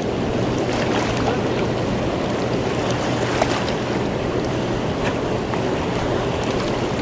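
Steady rush of churning, fast-flowing river water in a dam's tailwater, with wind buffeting the microphone.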